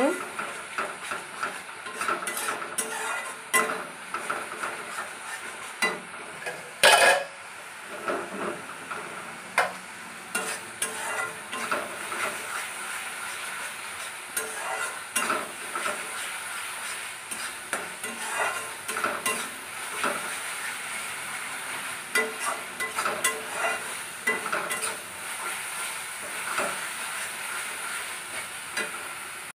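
Spice masala paste frying and sizzling in oil in a metal kadhai, stirred and scraped with a wooden spatula in many short scrapes and taps. There is one loud knock about seven seconds in.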